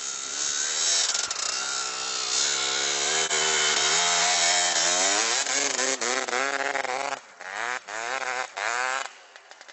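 Dirt bike engine revving hard through deep snow, the pitch rising and falling with the throttle. About seven seconds in it blips in three short bursts, then falls away.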